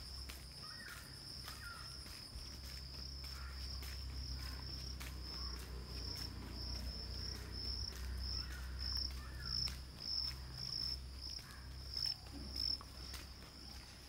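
Insects trilling at a steady high pitch, the trill breaking into distinct, louder pulses in the second half, over a low rumble.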